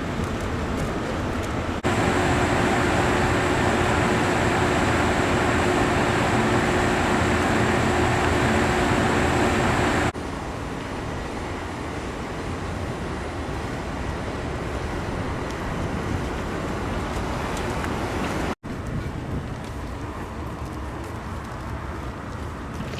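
Steady hum and hiss of parked electric trains' running equipment. It jumps abruptly louder about two seconds in, with a steady low hum and a high whine over it, then drops back abruptly near the middle. There is a brief cut to silence later on.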